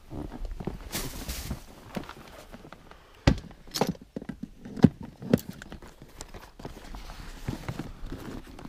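Gear being handled in an inflatable kayak: scattered knocks and clunks with some rustling, the sharpest four coming between about three and five and a half seconds in.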